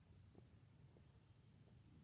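Near silence: faint outdoor background with a low rumble and a couple of tiny ticks.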